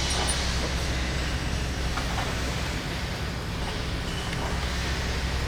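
Steady low drone of machinery in a metalworking workshop, with a faint knock about two seconds in.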